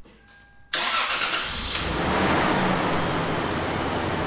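Toyota 4Runner's 5VZ-FE V6 engine starting up suddenly about a second in, then settling into a steady idle.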